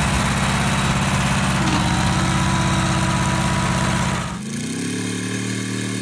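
Air-cooled Wisconsin VH4D V4 engine running steadily on a log splitter. It cuts off abruptly about four seconds in, and a Phoenix V4 aircraft engine follows, its pitch rising as it speeds up.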